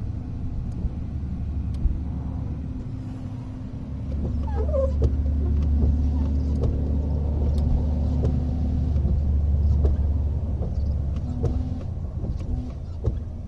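2005 Chrysler PT Cruiser windshield wipers running, the wiper motor giving a steady low hum that swells about four seconds in and eases off near ten seconds, with a few light clicks. The motor is drawing current spikes of up to about 20 amps.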